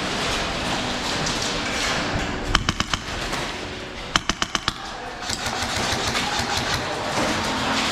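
Airsoft gun firing two quick bursts of about five shots each, roughly a second and a half apart, over a steady hiss of background noise.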